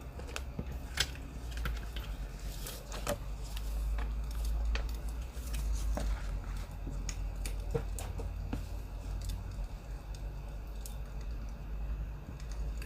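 Crackling firewood: irregular sharp pops and snaps over a steady low rumble.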